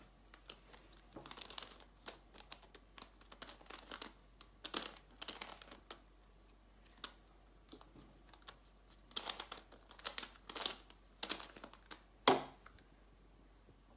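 A plastic Ivy (maple leaf) twisty puzzle cube turned by hand, giving bursts of light clicking and rattling as its corner pieces twist round. It ends in one sharp knock near the end as the cube is set down on a table.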